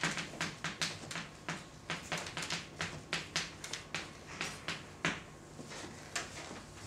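Chalk writing on a blackboard: a quick run of sharp taps and scratches, about three or four a second, thinning out after about five seconds as the writing stops.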